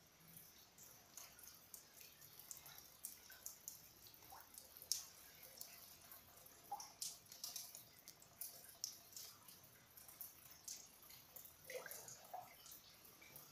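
Faint, irregular water drips and small ticks, several a second, in a house basement flooded by sewage water.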